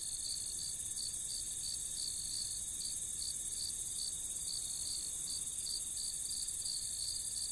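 Crickets chirping at night in a steady rhythm, about three chirps a second, over a steady high hiss.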